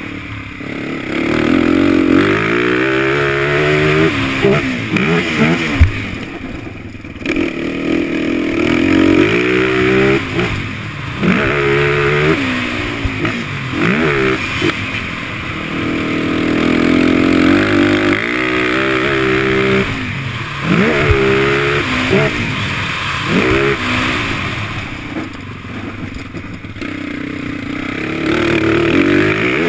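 Motocross machine's engine heard from on board, revving up through the gears and falling back over and over as it is ridden round a dirt track. The throttle is shut off briefly about seven seconds in, and again for a longer spell near the end.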